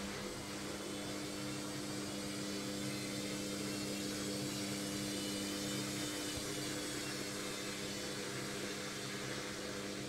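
Logik front-loading washing machine on an intermediate spin: the drum spinning with a steady whir over a low mechanical hum.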